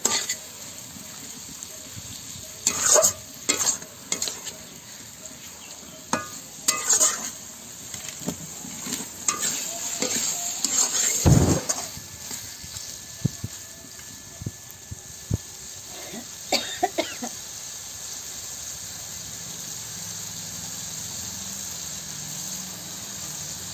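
Chicken pieces sizzling steadily in oil and spice paste in an iron kadai, with no water added yet, while a flat spatula scrapes and turns them in irregular strokes. The stirring eases off for the last few seconds, leaving the steady sizzle.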